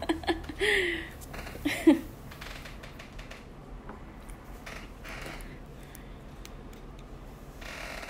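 A brief bit of voice in the first two seconds, then faint, scattered small clicks and taps of light handling.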